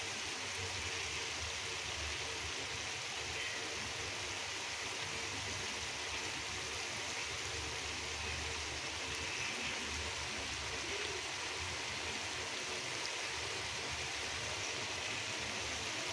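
Diced potatoes and chopped onions frying in hot oil in a wok, a steady, even sizzle.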